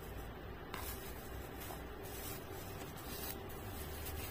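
Eating sounds: chewing, with a spoon scraping rice and brushing the plastic-covered plate in several short bursts, over a steady background hiss.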